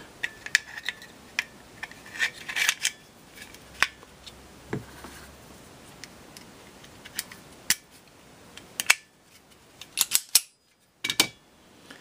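Small metal parts of a field-stripped .380 pocket pistol being handled and fitted back together: scattered sharp clicks and clacks of the slide and frame and parts against the tabletop, some in quick clusters.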